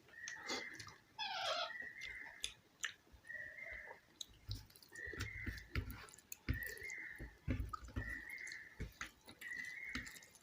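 Close-up chewing and wet mouth clicks of someone eating rice and mashed bhorta. Over it, a short high chirp repeats about once a second, its source unclear.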